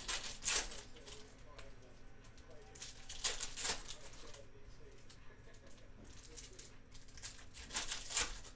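Plastic-foil trading-card pack wrappers crinkling and tearing as packs are opened by hand, in three short bursts: at the start, about three seconds in, and near the end.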